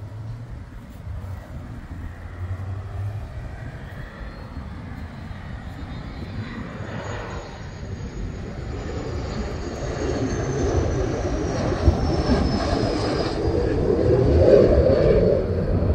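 Military fighter jet on its landing approach flying over, gear down: the jet engine noise grows steadily louder from about halfway, with a thin high whine sliding slowly down in pitch.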